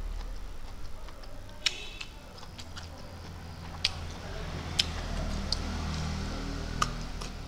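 Mouth sounds of a person eating close to the microphone: a handful of sharp, scattered lip smacks and clicks while chewing, over a low steady hum.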